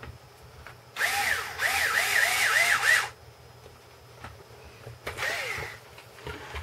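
Small electric screwdriver driving a screw into an RC crawler's chassis, its motor whine rising and falling in pitch several times over about two seconds. A shorter, quieter burst follows near the end.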